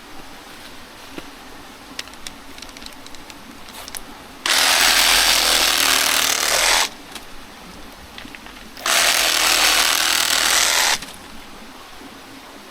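Cordless reciprocating saw with a 12-inch pruning blade cutting into a banana plant, run in two bursts of about two seconds each with a short pause between. Small clicks and rustles before and between the cuts.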